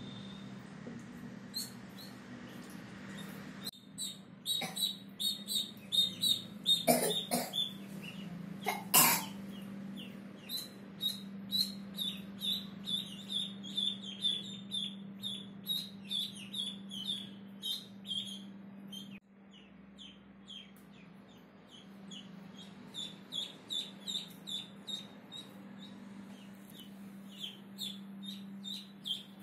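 White Pekin ducklings peeping: rapid short, high, downward-falling peeps, a few a second, over a steady low hum, with a few louder sharp sounds around seven to nine seconds in.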